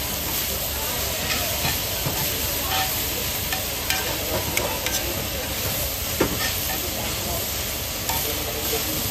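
Meat and sliced onions sizzling on a large flat pan, stirred and turned with metal tongs and a wooden spatula. A few sharp clicks of the utensils against the pan sound over the steady sizzle.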